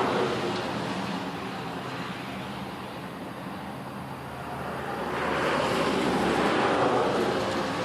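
A road vehicle driving past, its noise growing to its loudest about five to seven seconds in and fading near the end.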